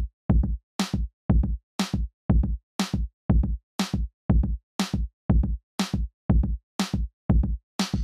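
Background music with a steady beat of short hits, about two a second, low kick-like hits alternating with sharper, brighter ones.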